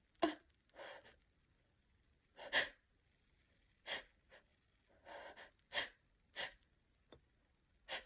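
A woman's short, sharp gasps and sniffs, about ten of them with quiet between, as a sneeze builds in a tickly, congested nose after sneezing snuff.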